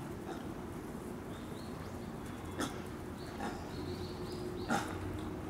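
Japanese macaques giving a few short, sharp calls, the loudest near the end, over a steady background hum.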